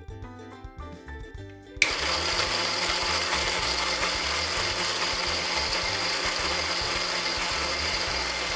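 Toy blender switched on with a click about two seconds in, then running with a loud, steady whirring buzz and a high whine, over light background music.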